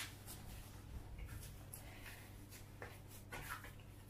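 Faint soft pats and rubbing of hands kneading a ball of yeast dough on a silicone baking mat, the dough no longer sticking, over a low steady hum.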